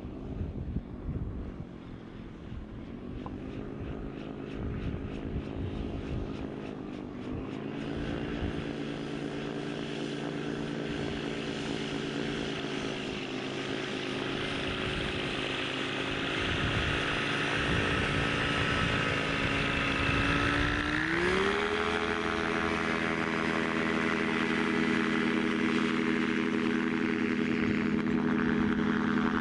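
Light gyrocopter's engine and propeller running and growing louder; about 21 seconds in, the engine pitch rises sharply and holds high as it is throttled up to full power for the takeoff run.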